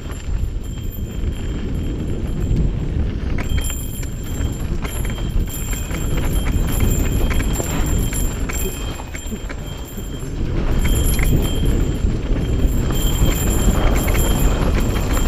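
Mountain bike riding down a dirt singletrack: wind rushing on the microphone, tyres rolling over dirt and the bike rattling and clattering over bumps. It gets louder about two-thirds of the way in.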